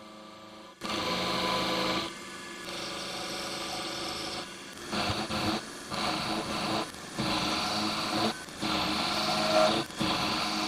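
Machine tool cutting a solid metal block down into chips: a steady running tone with cutting noise, its pitch changing every second or so and dipping briefly a few times.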